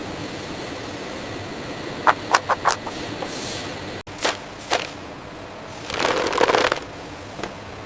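Steady machine noise, with a quick run of sharp clicks about two seconds in, a sudden cut about four seconds in, and a louder hissing stretch around six seconds.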